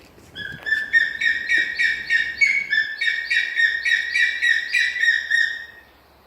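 A bird calls in a rapid series of repeated, sharp, slightly falling notes, about three a second, for about five seconds, then stops.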